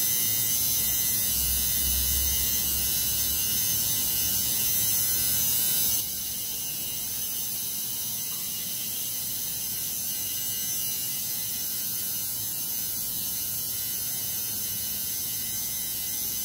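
Electric tattoo machine buzzing steadily as its needle starts lining the stencil on a forearm. The buzz drops in level about six seconds in and then holds steady.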